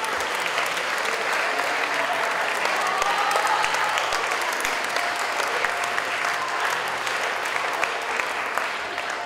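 Audience applauding steadily: dense, even clapping with a few faint voices heard through it.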